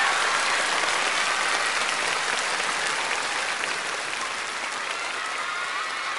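Audience applauding as a song ends, a dense patter of many hands clapping that slowly eases.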